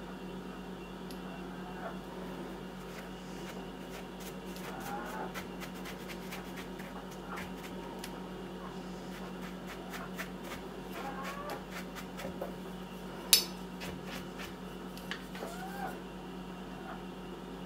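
A kitchen knife and a small brush working over the cap of a large scarletina bolete: soft scraping with many light ticks, and one sharp click about thirteen seconds in.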